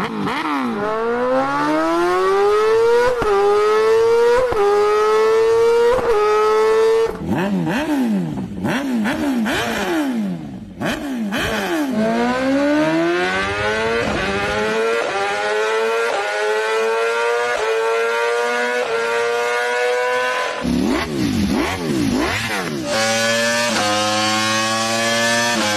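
Superbike engine and exhaust accelerating hard through the gears: the pitch climbs and drops back at each upshift. These runs alternate with stretches of quick revving and downshifting, and the sound jumps abruptly between several separate runs.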